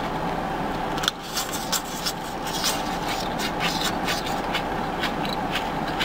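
Close-up eating sounds: a run of short clicks and smacks from chewing and utensils, over a steady background hum.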